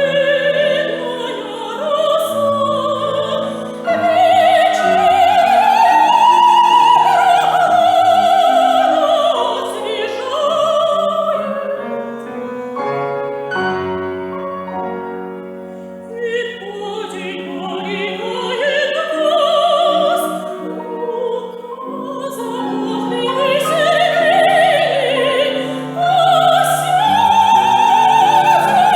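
Operatic soprano singing with wide vibrato and long held high notes, accompanied by piano. Near the middle the voice stops for a few seconds while the piano plays alone, then the singing resumes.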